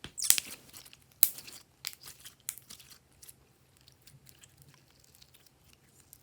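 Glossy slime being squished and worked by hand, giving a run of wet crackling pops that are loudest in the first three seconds and then thin out to faint scattered clicks.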